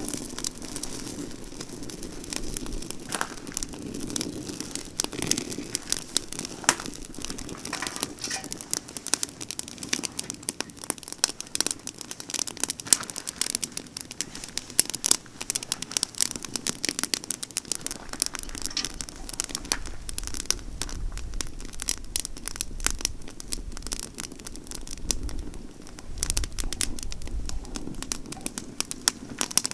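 Campfire of pine branches crackling and popping steadily, with dense irregular snaps. A low rumble comes and goes in the second half.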